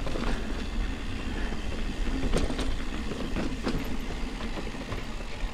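Mountain bike rolling down dry dirt singletrack, with tyre rumble and wind buffeting the handlebar-mounted camera. Several sharp clacks come through as the bike jolts over bumps.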